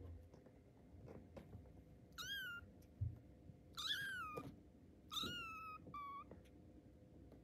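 Very young tabby kitten mewing four times: thin, high-pitched cries each under a second, the last one short. A soft low thump comes between the first and second mews.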